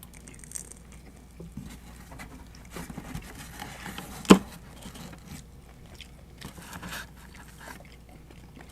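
Close-miked eating of pizza: small clicks, scrapes and chewing noises, with one sharp click or knock a little after four seconds in that stands out as the loudest sound.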